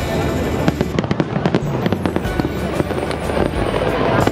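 Aerial fireworks display: a dense, continuous run of bangs and crackling from bursting shells, thickest a second or two in.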